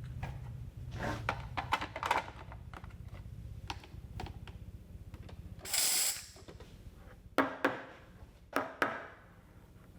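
Delonghi Dedica Deluxe espresso machine at the end of milk steaming: a steady low hum of the machine that stops about five seconds in, a short hiss of steam from the wand about six seconds in, and several sharp metallic clinks of the milk pitcher.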